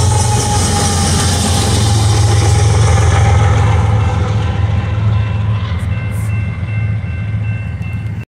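A GE wide-cab diesel locomotive, a distributed-power unit placed among tank cars, running as it passes close, with the rolling noise of the train. The engine's deep steady hum gradually fades as it moves away.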